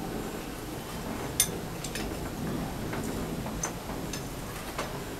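A few scattered light metallic clicks and taps, the sharpest about a second and a half in, as a diesel rocker-arm assembly is set in place on the cylinder head.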